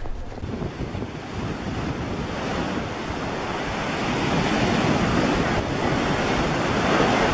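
A steady rushing noise, like surf or wind buffeting the microphone, that swells gradually over the first few seconds.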